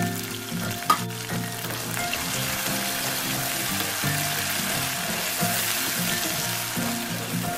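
Potato cubes, onion and spices sizzling in hot oil in a frying pan, stirred with a wooden spatula, with one sharp knock about a second in. Soft background music plays under it.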